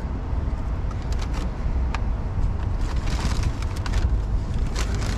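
Steady low outdoor rumble with scattered short crackles and clicks, most of them in the second half.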